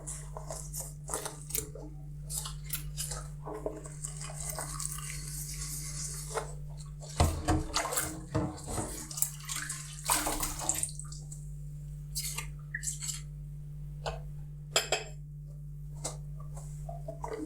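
Dishes being hand-washed at a kitchen sink: dishes and utensils clinking and knocking again and again, with a tap running for a couple of seconds about four seconds in. The busiest clatter comes just past the middle.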